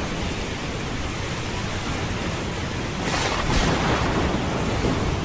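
Storm at sea: a steady rush of wind and breaking waves, with wind buffeting the microphone. It swells louder for about a second, around three seconds in.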